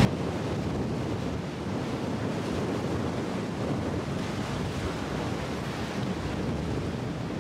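Sea surf washing against the shore with strong wind buffeting the microphone: a steady, even rush.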